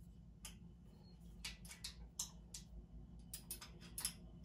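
Allen wrench tightening a screw in the metal crossbar of a standing-desk frame: irregular light clicks, several a second, coming in two short runs.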